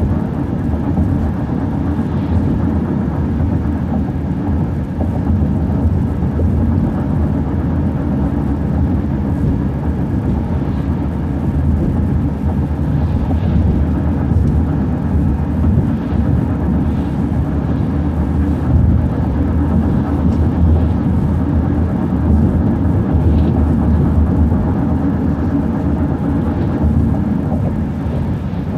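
City transit bus driving along at steady speed: a continuous low engine and road rumble heard from inside the bus.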